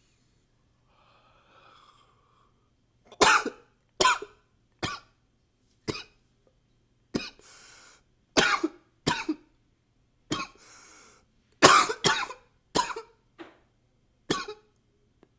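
A man coughing in a long fit: about fifteen sharp coughs in short clusters, with breaths drawn in between. A quiet breath comes first, and the coughs die away shortly before the end.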